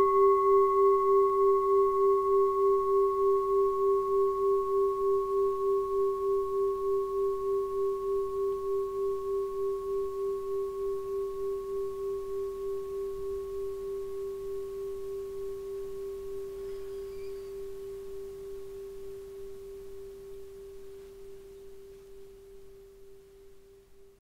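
Singing bowl ringing out after a strike. One low, steady tone with fainter higher overtones and a slow pulsing wobble fades gradually over about twenty seconds, then cuts off abruptly at the end.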